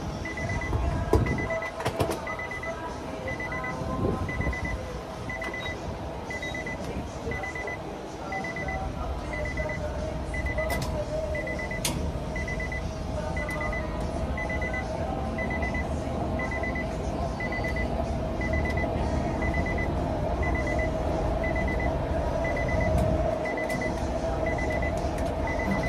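Refuelling an SUV at a gas pump: a steady hum from the pump and a high beep repeating about three times every two seconds, with a few clicks of the nozzle. A low rush of fuel flowing sets in about eight seconds in.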